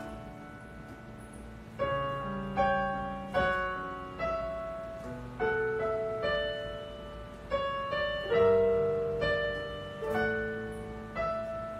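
Solo piano accompaniment playing slow chords. The chords are struck about once a second, and each is left to ring and fade.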